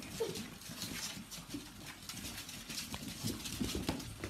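Pug puppies scrambling on a wooden floor, their claws pattering in quick ticks, with a few short, faint squeaky yips.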